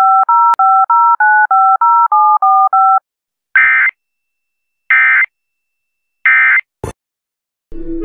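A quick string of about twelve touch-tone (DTMF) beeps, each a pair of tones, over about three seconds. Then three short warbling Emergency Alert System data bursts about a second apart, short like an end-of-message code, and a brief click. Music comes in right at the end.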